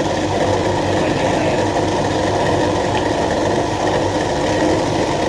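Electric soybean grinding machine running steadily, its motor driving the grinding wheel with an even, continuous mechanical hum.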